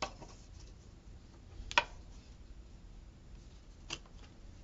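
A few soft clicks and taps from handling washi tape on the paper planner page. The sharpest click comes a little under two seconds in.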